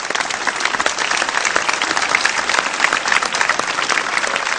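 A large crowd applauding loudly, a dense, steady mass of hand claps.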